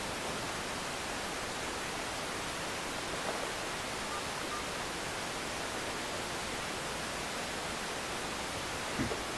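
Steady, even hiss with little low end and no engine note, broken only by a short faint knock about nine seconds in.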